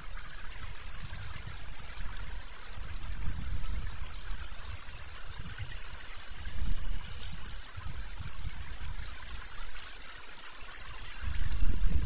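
A run of short, high, thin bird calls, about two a second, from about three seconds in until near the end, over a gusty low rushing noise.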